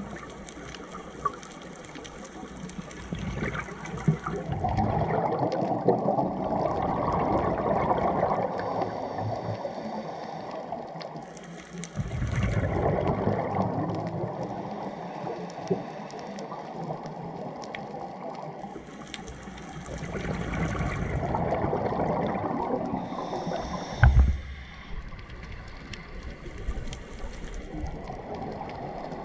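Scuba regulator breathing heard underwater: four bursts of exhaled bubbles rushing past the camera housing, each about three seconds long, with quieter pauses between. A sharp knock comes about 24 seconds in.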